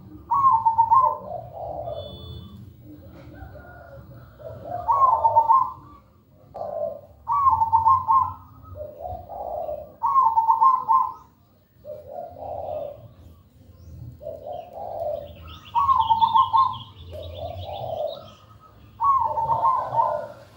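Zebra dove (perkutut) singing its rhythmic cooing phrase over and over, a new phrase about every two to three seconds. Fainter high chirping joins briefly about two-thirds of the way in.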